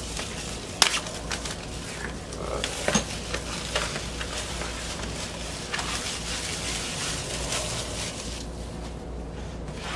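Plastic shrink wrap crinkling and crackling as it is torn and peeled off a vinyl LP sleeve, with sharp crackles now and then. The crackling thins out near the end.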